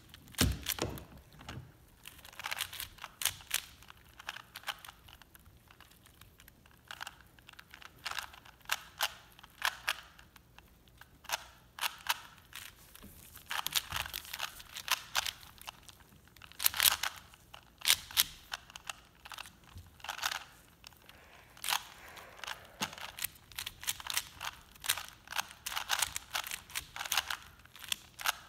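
A 3x3 and a 4x4 puzzle cube being turned by hand at once: quick, irregular plastic clicking and clacking of the layers, in runs of rapid turns broken by short pauses.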